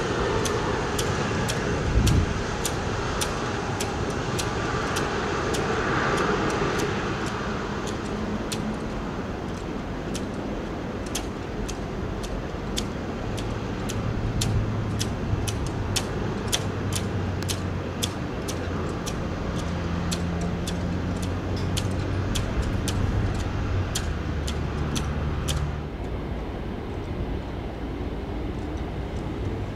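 Rear-mounted jet engines of a Bombardier CRJ regional jet running at taxi power, a steady hum with a faint whine falling in pitch at the start. Over it runs a train of sharp ticks, about two a second, that stop a few seconds before the end.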